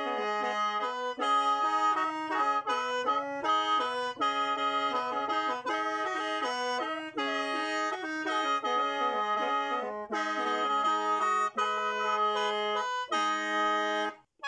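Lao khaen (bamboo free-reed mouth organ) playing a quick melody in chords over a held drone note, breaking off briefly near the end.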